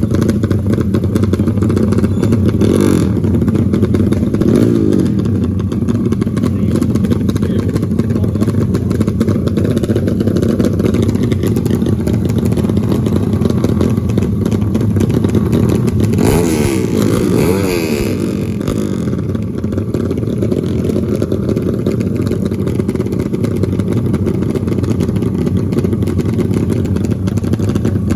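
Motorcycle engines running steadily, with revving that rises and falls in pitch about three seconds in and again around sixteen seconds in.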